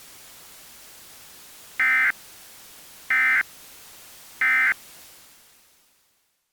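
Emergency Alert System end-of-message data tones: three identical short electronic bursts about 1.3 seconds apart, marking the end of the tornado warning broadcast. They sound over a faint hiss that fades out near the end.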